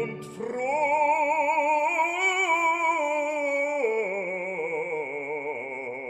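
Background classical music: one long note held with vibrato, dropping to a lower note about four seconds in.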